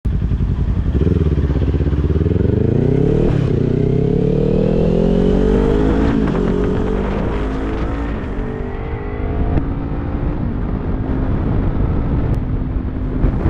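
Sportbike engine pulling away and accelerating up through the gears: its pitch climbs and drops at upshifts about three and six seconds in, then settles to a steady cruise. Heavy wind noise on the helmet-camera microphone runs under it.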